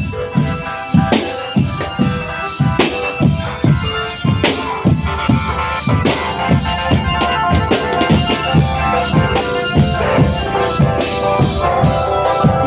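Marching drum band playing: bass drums and snare drums beat a steady march rhythm, about two to three strong hits a second, under a bell-lyre melody.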